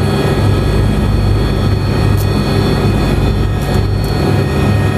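Agusta A109S Grand helicopter's twin turboshaft engines and rotor running on the ground, heard from inside the cockpit: a steady turbine whine made of several high tones over a pulsing low rotor throb.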